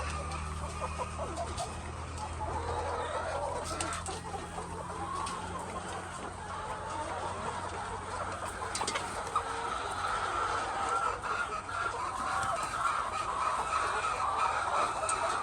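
A flock of laying hens clucking and calling, with many voices overlapping. The calls grow louder over the last few seconds.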